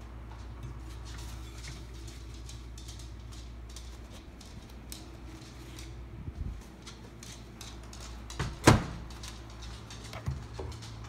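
Microwave oven heating, a steady low hum that drops out about four seconds in. Then a few knocks and one loud clunk about two thirds of the way through, with a smaller knock near the end.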